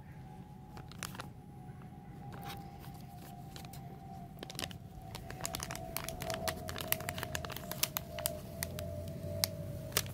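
Translucent paper envelope crinkling and crackling as it is handled, unfolded and its sticker seal peeled open, the crackles getting busier and louder from about halfway. A faint steady tone slowly falling in pitch runs underneath.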